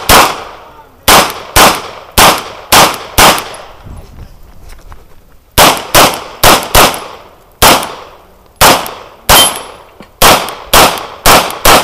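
CZ P-09 pistol firing a string of about seventeen shots, mostly in quick pairs a fraction of a second apart, each shot loud with a short echoing tail. There is a pause of about two seconds a few seconds in before the firing resumes.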